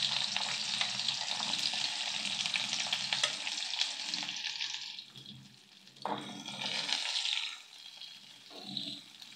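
Shallots and dried red chillies sizzling and crackling in hot sesame oil with mustard seeds and cumin: a tempering being fried. The sizzle drops away about five seconds in. A sharp tap about six seconds in is followed by shorter bursts of sizzling as the pan is stirred.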